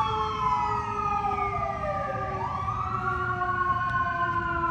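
Emergency vehicle siren wailing, its pitch sliding down for about two seconds and then climbing back up, with a second, steadier siren tone sounding at the same time.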